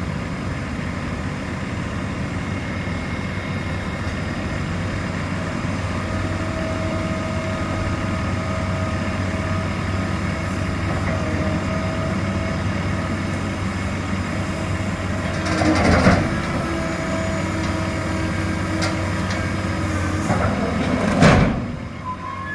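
Engine running steadily, with two louder rushes of noise, one about two-thirds of the way in and one near the end.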